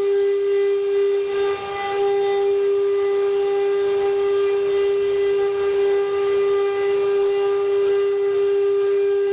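Spindles of a multi-head CNC wood-carving machine running at speed, giving a steady high-pitched whine that holds one pitch, with a brief dip about a second and a half in.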